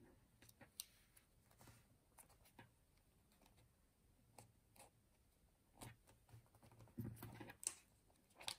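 Faint, scattered light taps and clicks of fingers and fingernails pressing a sticky index tab onto the edge of a planner page, with soft paper rustles.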